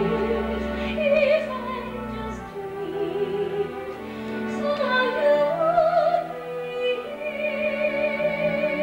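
A female soprano singing a slow classical-style ballad with wide vibrato over orchestral accompaniment, with sustained chords underneath; she holds a long note near the end.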